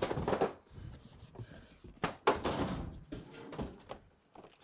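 Cardboard boxes being handled: a large carton tipped and smaller boxes pulled out of it, giving a string of irregular knocks, scrapes and rustles of cardboard, loudest right at the start and about two seconds in.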